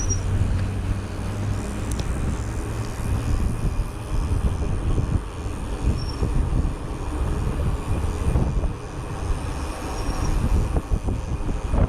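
Wind buffeting the microphone of a camera on a moving bicycle, a low, gusty rumble that rises and falls.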